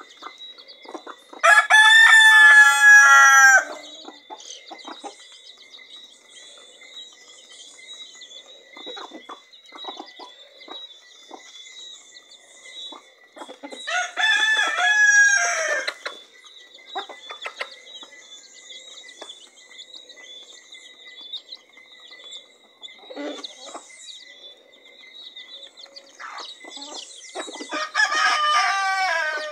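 A rooster crowing three times, each crow about two seconds long and roughly thirteen seconds apart. Between the crows there is quieter clucking, with soft taps from hens pecking grain off paving stones.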